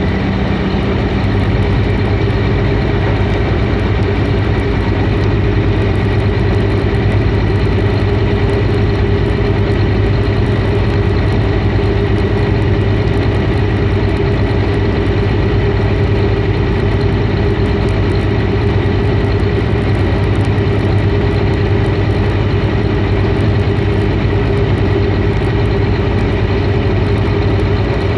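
Steady heavy engine noise as a tracked grapple yarder crawls slowly up onto a landing barge's deck, with a shift in the engine note about a second in.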